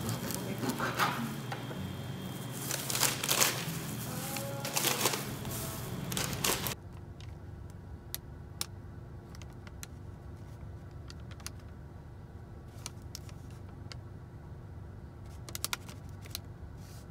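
A bread knife sawing through crusty bread on a wooden board, the crust crackling and scraping in quick strokes. After about seven seconds this cuts off suddenly to a quieter steady low hum with a few light paper crinkles.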